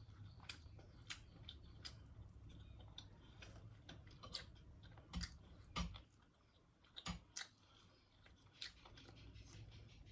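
Faint, irregular clicks and small taps of someone eating noodles and bread, a few louder ones in the middle, over a low steady hum.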